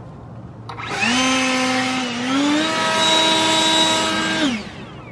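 Handheld leaf blower switched on about a second in, its whine rising to speed, stepping up once more and running steadily, then winding down with a falling whine near the end. It is blowing debris out of a roof box gutter.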